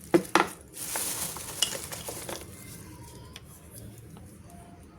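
Handling noise: two sharp clicks in quick succession, then about two seconds of scraping, rustling noise with a single knock partway through, fading out.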